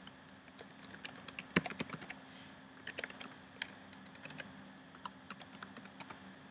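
Typing on a computer keyboard: irregular key clicks in short runs, over a faint steady hum.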